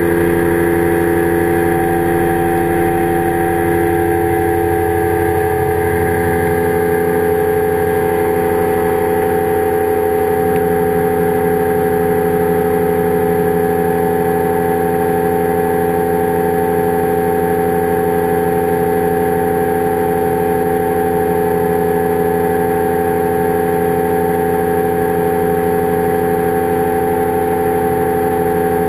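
Powered parachute's engine and propeller running steadily in level flight: a constant drone made of several steady tones, with one of them dropping away a few seconds in.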